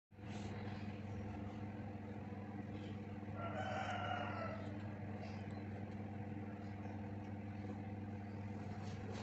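A rooster crows once, about three and a half seconds in, for just over a second, over a steady low electrical hum.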